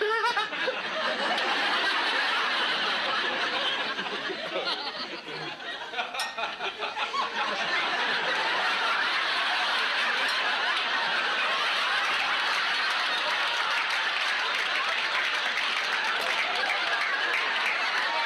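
Sitcom studio audience laughing at length. The laughter eases off about four seconds in, then swells again and carries on steadily.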